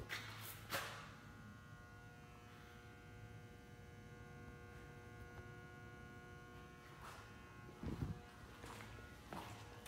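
Faint, steady electrical buzz made of several tones held together. A few knocks in the first second, a dull thump about eight seconds in, and more knocks near the end.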